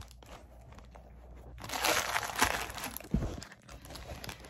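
Rustling and crinkling from things being handled close to the phone's microphone, loudest from about two seconds in, with a knock a little after three seconds.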